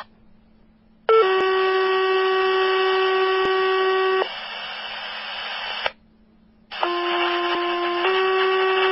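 Fire-dispatch tone-out paging heard over a radio scanner: loud, steady paging tones that alert volunteer fire stations to respond. A first tone sequence ends in a few seconds of radio hiss that cuts off. A second sequence starts near the end: a short tone that steps to a longer one about a second later.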